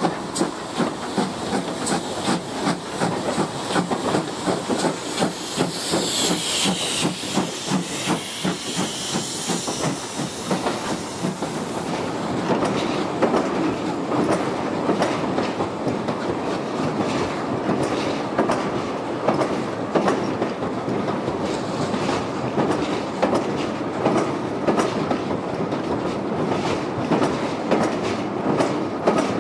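A GWR steam locomotive running tender-first and its train of coaches passing, the wheels clicking over the rail joints in a steady rhythm over a continuous rolling rumble.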